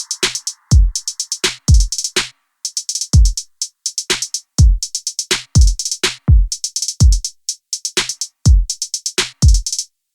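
Background electronic music: a drum-machine beat with deep kicks that drop in pitch and fast rolls of hi-hat ticks.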